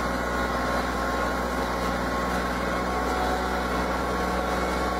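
Small engine of a walk-behind cultivator running steadily as it works a furrow between sugarcane rows.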